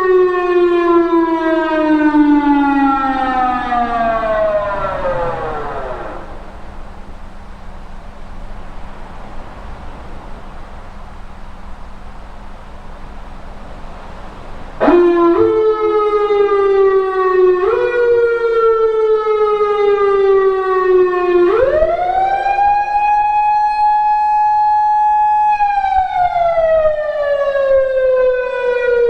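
PATLITE SAP-50 electronic siren amplifier sounding through its speaker. A wail winds down and fades over the first six seconds, leaving a quieter stretch with a faint hum; about halfway the siren starts again abruptly with short stepped rises and falls, then sweeps up to a held steady tone, falls slowly, and rises again near the end.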